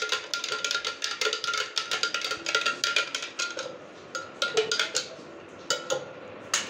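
Metal spoon stirring liquid in a glass jug, clinking against the glass several times a second with a ringing tone. The stirring stops a little over three and a half seconds in, followed by a few separate clinks of the spoon on the jug.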